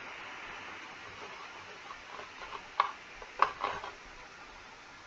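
Steady background hiss with a few sharp clicks, three or four of them close together about three seconds in.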